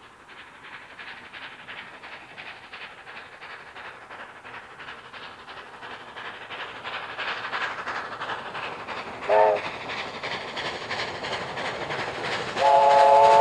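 Double-headed steam locomotives 3265 and 3526 approaching, their rapid exhaust beats growing steadily louder. A short steam-whistle toot comes about nine seconds in, and a longer, loud whistle blast sounds near the end.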